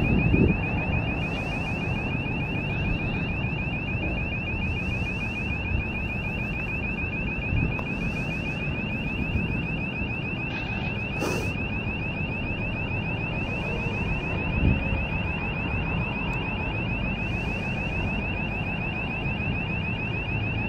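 Warning buzzer of an SMC TL55 solar lighting tower sounding a steady, rapidly pulsing high-pitched tone while the hydraulic mast lowers.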